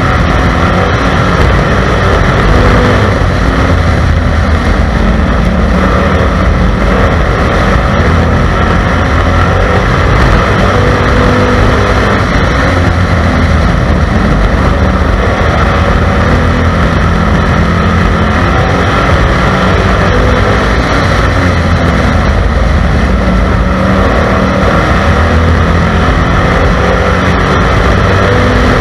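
Stock car engine running flat out at race pace, heard loud from inside the car, its pitch shifting a little up and down.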